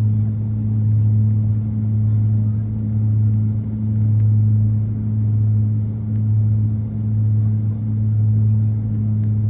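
A steady low mechanical drone, one deep tone with a fainter tone an octave above, swelling and easing slightly every second or so.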